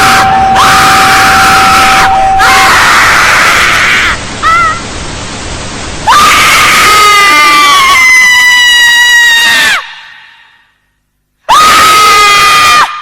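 Loud screams, one after another. There are two short screams at the start, a long scream from about six seconds in that wavers and trails off, a moment of silence, then another short scream near the end.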